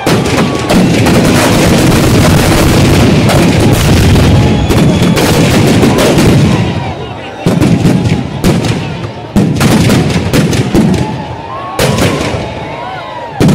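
Firecrackers inside burning Ravana effigies going off. A dense, rapid rattle of bangs fills the first six or seven seconds, then single loud bangs follow every second or two.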